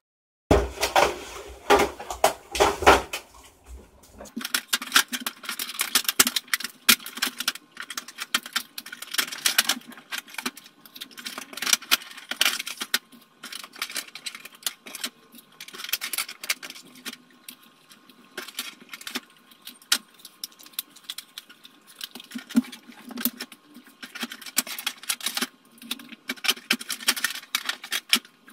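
Plastic clamshell container and cardboard egg-carton pieces being handled during the packing of live locusts: rapid, irregular clicking, tapping and rustling, sped up.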